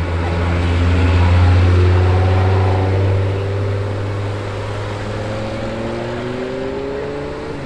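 KTM X-Bow GT-XR's Audi 2.5-litre turbocharged five-cylinder engine pulling past at low revs with a deep, steady note, loudest about a second and a half in. From about halfway through, its pitch climbs steadily as the car accelerates away.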